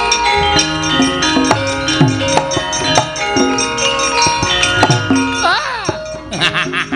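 Javanese gamelan playing: bronze metallophones and gongs sound in steady struck tones, over a low drum stroke that drops in pitch about once a second. A run of quick metallic clanks comes in near the end.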